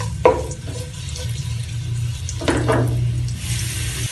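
Minced garlic sizzling in oil in a wok while a wooden spatula stirs and scrapes across the pan, once near the start and again about two and a half seconds in. Near the end the sizzle rises to a brighter, steady hiss, over a steady low hum.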